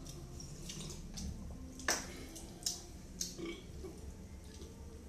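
Close-up eating sounds: a sip of soup broth from a bowl, then lip smacks and chewing, with a few short sharp smacks about two and three seconds in.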